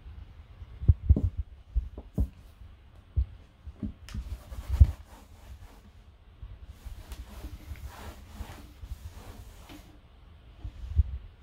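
Cotton cloth wiping across a wooden tabletop, with irregular low thuds and knocks on the table as the hand and a Miniature Pinscher puppy's paws bump it. The rubbing is strongest in the middle stretch.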